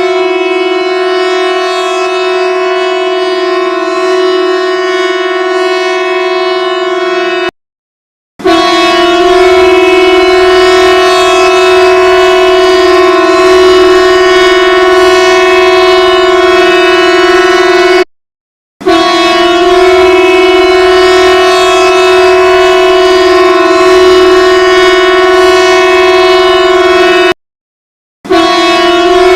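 Norwegian emergency alert alarm: a loud, steady tone of one unchanging pitch with strong overtones, broken by three short silences, one about every ten seconds.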